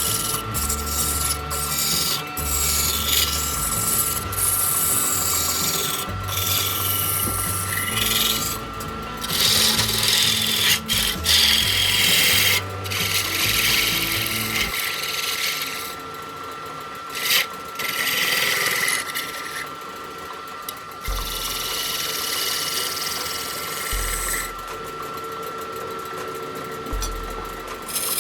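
A wood lathe running while a turning tool scrapes and rasps against the spinning wood in bursts, over a steady high tone.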